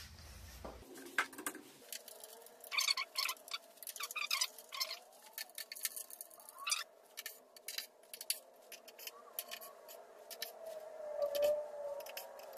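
Irregular small metal clicks and rattles as Allen screws are threaded by hand into a motorcycle top-case adapter plate and then tightened with a torque wrench.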